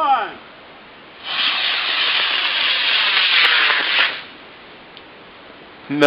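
Model rocket motor firing after ignition from a remote-control launcher: a loud rushing hiss that starts about a second in and cuts off about three seconds later as the motor burns out.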